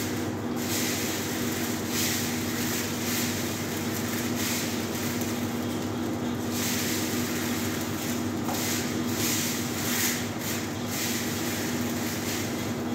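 Steady rushing hum of a commercial kitchen's extractor hood fan and a lit gas burner under a lidded pot, with a constant low drone and the hiss swelling and easing now and then.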